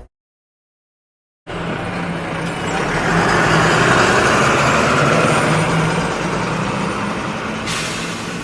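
Silence for about a second and a half, then a bus sound effect: a bus engine running as the bus drives along, swelling for a couple of seconds and then slowly fading. A brighter hiss comes in near the end.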